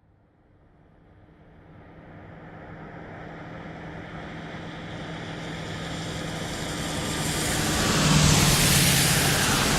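Sports car engine approaching from a distance, growing steadily louder for about eight seconds, then passing close by with a slight drop in pitch and beginning to fade.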